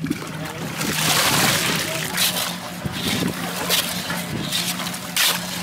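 Hands sloshing and splashing muddy water in a large metal basin, washing brass-scrap sludge in uneven swishes, loudest about a second in.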